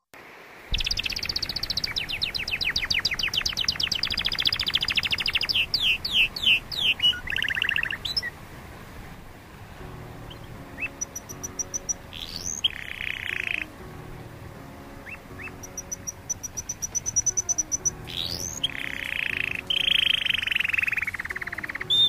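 A canary singing: long rapid trills of fast repeated notes, a few quick swooping whistles, and high thin trills broken by rising sweeps. Under it runs a steady bubbling of aquarium water.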